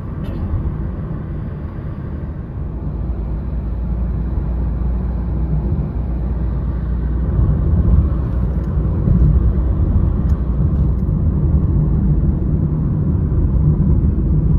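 Steady low road rumble heard from inside a moving road vehicle, growing gradually louder over the first half and then holding steady.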